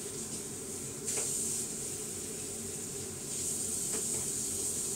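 A steady high hiss that gets a little louder about a second in and again after about three seconds, with two faint clicks.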